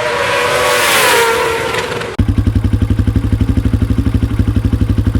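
Loud shouting over a noisy wash, then, cut in abruptly about two seconds in, a motorcycle engine running with a rapid, even beat of about a dozen pulses a second over a steady low hum.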